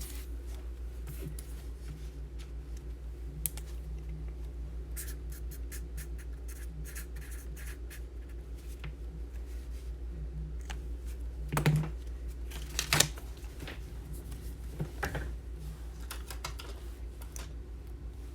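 Scattered light clicks of typing on a computer keyboard over a steady low hum, with two louder knocks about two-thirds of the way through.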